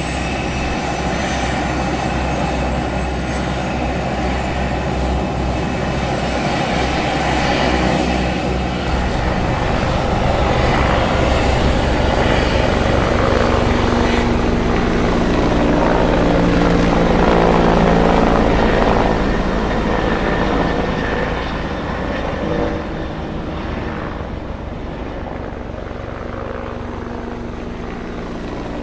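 Military helicopter flying past with its rotor and engine running steadily. It grows louder toward the middle, then fades as it moves away.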